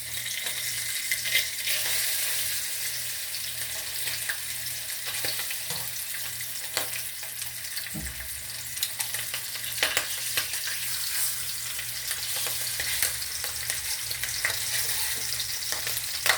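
Hot dogs frying in hot grease in a deep-fryer basket: a steady sizzle, with a few light clicks scattered through it.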